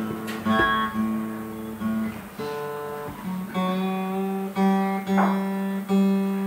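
Acoustic guitar with the same low note plucked over and over, about once a second, each note left to ring; the pitch settles a little lower about three seconds in, as when a string is being retuned between songs.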